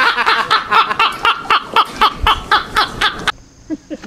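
A person laughing hard in a quick run of 'ha-ha' pulses, about five or six a second, cut off abruptly a little after three seconds in. After the cut, a steady faint high-pitched hum and softer voices.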